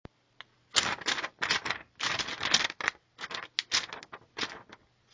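Paper crinkling and rustling in quick, irregular bursts, after a single sharp click at the very start.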